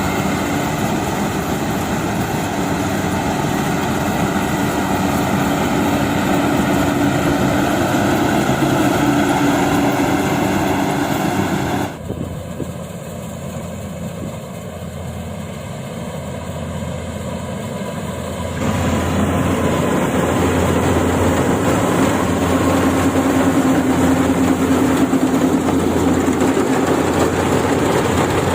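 Yanmar AW70V combine harvester's diesel engine and machinery running steadily under load. The sound drops sharply about twelve seconds in and comes back after about six seconds.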